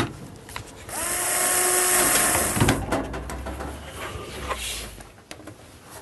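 Electric drill-driver spinning up quickly and running at a steady pitch for about a second and a half, backing out the washing machine's casing screws. It is followed by a few scattered clicks and knocks of parts being handled.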